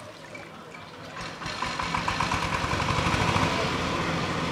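An engine running, rising in level about a second and a half in and then running steadily with a fast, even pulsing.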